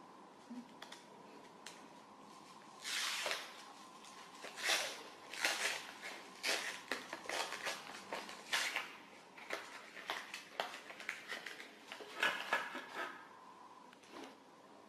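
Wet mouth sounds of licking and slurping soft-serve ice cream: a run of short, irregular smacks and slurps, over a faint steady tone.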